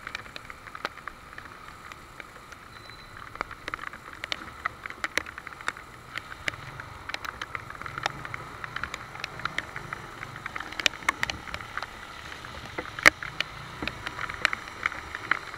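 Rain falling steadily, with many sharp irregular ticks of raindrops striking the camera close up, over a motorcycle engine running low underneath.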